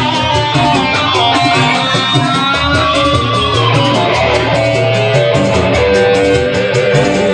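Live band music with electric guitar over a steady beat, played loud through PA speakers.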